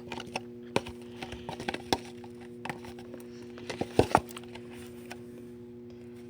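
Sticky homemade glue-and-laundry-detergent slime being stretched and squished by hand, giving a scatter of small irregular clicks and pops, with a brief flurry about four seconds in.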